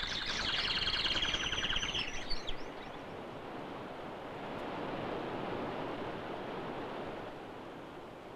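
Birds chirp and trill rapidly through about the first two seconds over the steady rushing of a river over rocks; the water noise swells about halfway and then fades toward the end.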